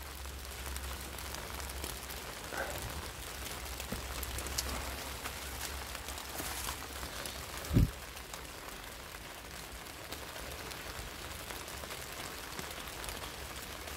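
Light rain pattering on black plastic mulch, a steady hiss with scattered small ticks, broken by a single dull thump about eight seconds in.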